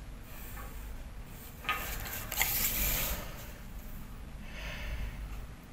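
A plastic ruler being shifted and slid across a sheet of paper, with a sharp tap about halfway through as it is set down, then a shorter, fainter scrape near the end.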